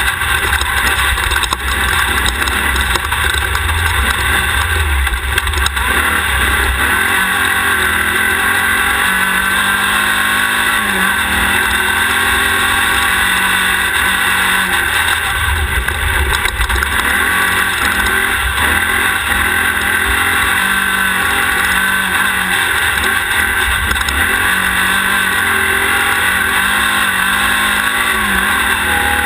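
Off-road race car's engine running hard through an onboard camera, its pitch repeatedly rising and falling as the driver accelerates, lifts and shifts, over a constant loud rush of wind and terrain noise.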